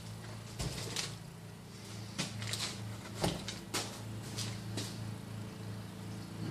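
Small parts packaging being handled: scattered clicks, taps and rustles, over a steady low hum.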